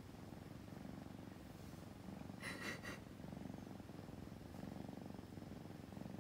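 Domestic kitten purring, close up, the purr swelling and easing with each breath while it is stroked and held on its back, relaxed with eyes closed. A brief faint rustle comes about halfway through.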